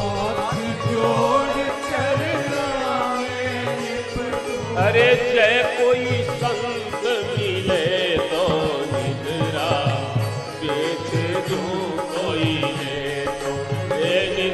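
Harmonium playing a devotional bhajan melody over a drum beat, with a man's voice singing long, ornamented notes.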